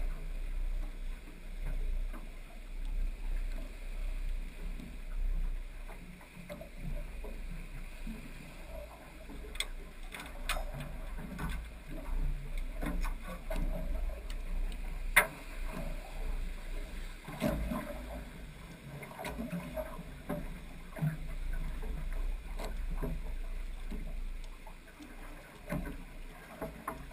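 Water lapping and slapping against a small aluminum boat's hull over a steady low rumble, with a few sharp knocks and clicks scattered through. The loudest click comes about fifteen seconds in.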